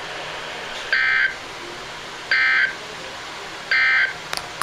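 NOAA Weather Radio EAS (SAME) end-of-message data tones: three short, buzzy digital bursts about a second and a half apart, signalling the end of the severe thunderstorm warning broadcast.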